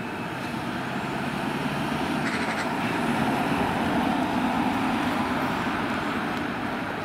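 A motor vehicle driving past, its engine growing louder to a peak about halfway through and then fading.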